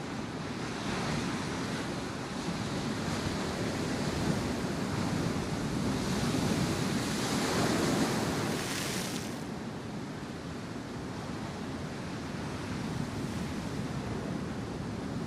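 Steady outdoor rushing noise that swells over several seconds, is loudest about eight seconds in, and eases off soon after.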